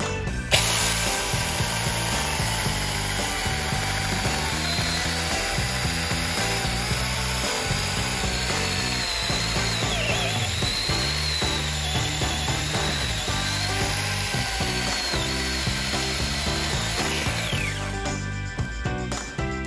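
Makita-battery-compatible cordless mini chainsaw running and cutting through a log about 13 cm thick. The motor and chain whine waver in pitch as it works through the wood. It starts about half a second in and stops a couple of seconds before the end.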